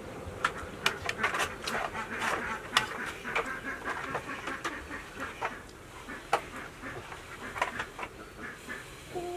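Close-up eating sounds: chewing and lip-smacking, a string of short wet mouth clicks, densest in the first few seconds and sparser later.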